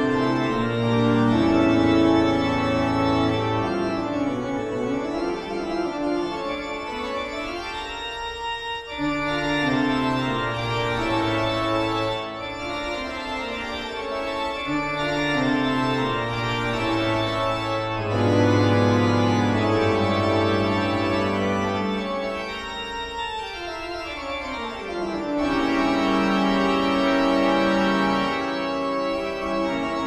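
Horror-style background music on organ: long held low chords that change every few seconds, with a falling pitch glide a little before the end.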